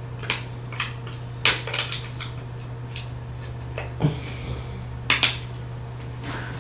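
Small tool scraping and prying shattered back glass off an iPhone XR, with irregular sharp clicks and clinks of glass shards, the loudest about one and a half seconds in and again near five seconds. A steady low hum runs underneath.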